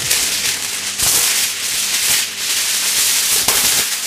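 Aluminium kitchen foil being pulled off the roll and handled, a loud crinkling rustle.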